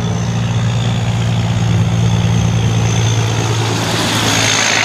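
Diesel engine of a long-nose semi-truck with a loaded trailer running with a steady low drone as it drives past. Road and tyre noise swell about four seconds in as it comes closest.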